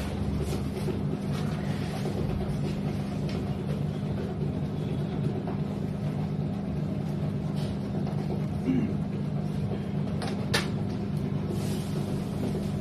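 Steady low mechanical hum with a constant tone, and a single sharp click about ten and a half seconds in.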